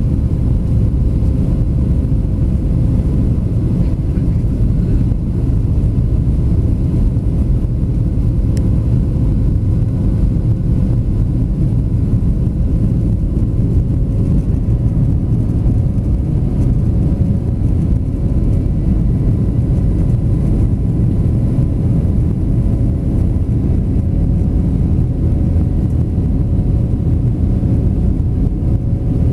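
Steady cabin noise of a Boeing 737-700 in flight, heard from a window seat over the wing: a deep rush of airflow and the CFM56 turbofan engines, with a faint steady hum running through it.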